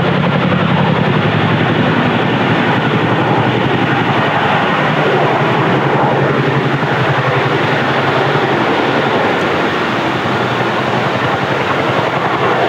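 CH-47F Chinook's tandem rotors running, a loud, steady, fast-pulsing rotor chop.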